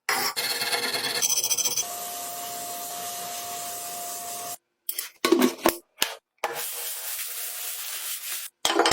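Abrasive rubbing and scraping on metal, as in sanding or wire-brushing rust off a part, in short clips that cut off abruptly several times; a steady hum runs under it for a few seconds in the first half.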